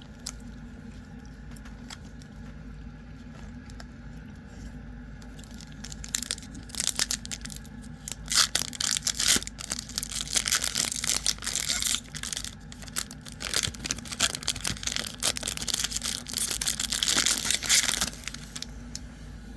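Foil booster pack wrapper of trading cards being crinkled and torn open: a dense run of crinkling and ripping that starts about six seconds in and stops a second or two before the end, over a steady low hum.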